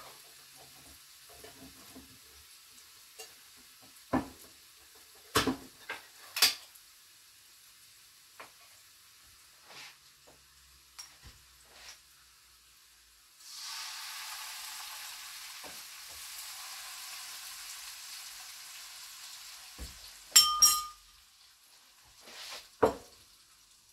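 Food sizzling in a frying pan: a steady hiss begins suddenly about halfway through, fades slowly and dies away after some six seconds. Scattered clicks and knocks of jars and utensils come before it, with sharp clinks near the end.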